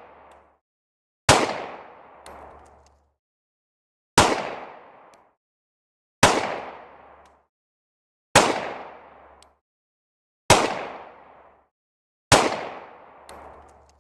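Six single gunshots from a firearm, fired one at a time about two seconds apart, each sharp crack trailing off in an echo that fades over about a second.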